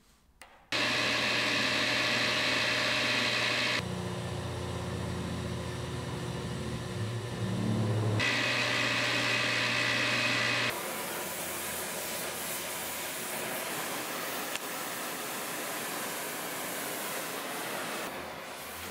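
Drill press motor running with a steady hum while the bit cuts into an ironwood handle block, heard in several takes joined by abrupt cuts. After about eleven seconds a quieter steady rushing noise takes over.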